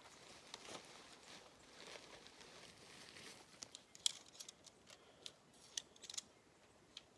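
Faint rustling of tent fabric, then a run of short sharp clicks from about halfway in, as a shock-corded tent pole is drawn out and its sections are pulled apart and folded.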